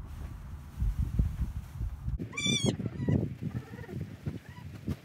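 Newborn goat kid bleating: one loud, high-pitched, wavering bleat about two seconds in, followed by a few fainter, lower bleats. Before the first bleat there is rustling of straw being pulled from a bale.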